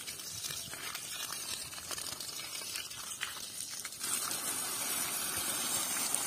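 Water from a garden hose splashing into a muddy puddle around plants, as a steady gushing hiss with small splashes; about four seconds in it grows louder and steadier as the jet sprays up into a small tree's leaves.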